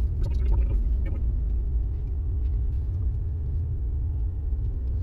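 Steady low rumble heard inside a Ford pickup's cab as it drives slowly over a gravel and dirt track: engine and tyre noise.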